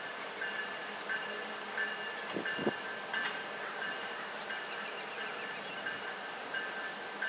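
An approaching BNSF diesel freight train with its locomotive bell ringing steadily, about one strike every two-thirds of a second, over a faint rumble of the train.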